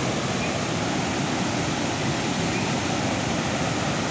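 Flash-flood torrent of muddy water pouring over the edge of a road and down a bank, a steady, even rush of water.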